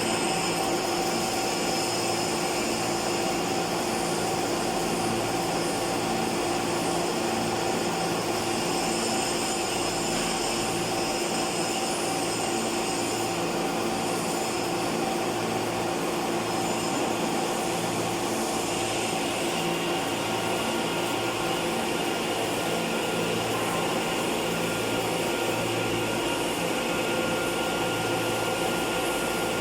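Steady hum and whine of machine-shop machinery running, with several constant tones and a faint regular low pulsing; a higher whine joins about two-thirds of the way through.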